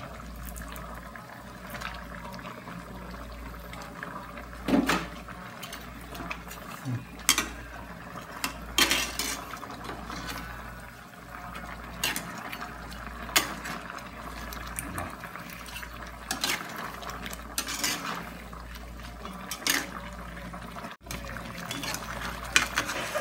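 Metal spatula scraping and knocking against a steel wok about nine times, spread over the stretch, while fish in sauce simmers and bubbles in the pan.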